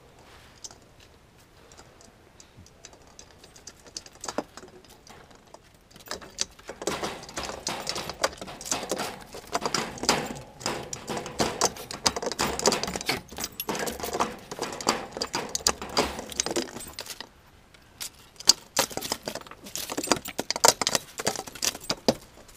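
A Yorkshire terrier nosing and pawing right up against the camera on a wooden deck: a fast, close jumble of scratches, clicks and jingles that starts about six seconds in, breaks off briefly around seventeen seconds and picks up again until near the end.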